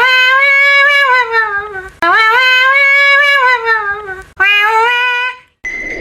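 A high-pitched cartoon voice giving three long wails, each rising then slowly falling in pitch, the third one shorter. A steady high tone comes in near the end.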